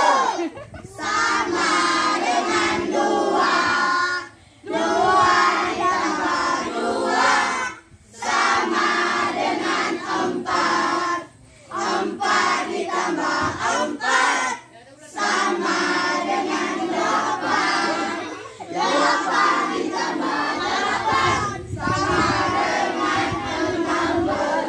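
A group of children singing an action song together in unison, in short phrases broken by brief pauses every few seconds.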